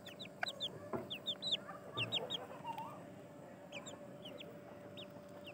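Chickens clucking and chirping: runs of short, high, downward chirps, several a second, with a lower cluck about two and a half seconds in.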